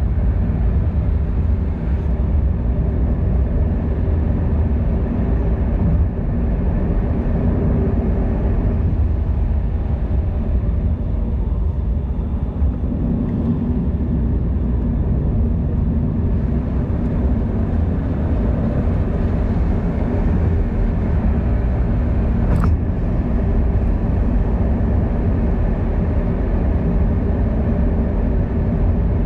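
Steady low rumble of wind and road noise on a microphone moving along with a bicycle, with one sharp click about 22 seconds in.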